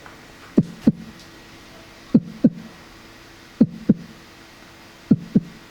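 Made-up heartbeat sound effect: dull double thumps, lub-dub, each thump dropping quickly in pitch. There are four pairs, about one and a half seconds apart.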